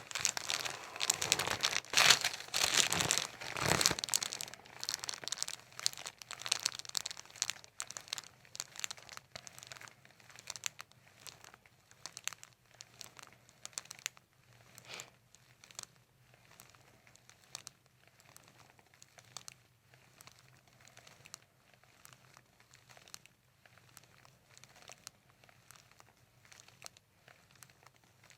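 Paper cover on a chiropractic table crinkling and rustling as the patient's head and neck are moved on it: a dense crackle in the first four seconds, then sparser scattered crinkles.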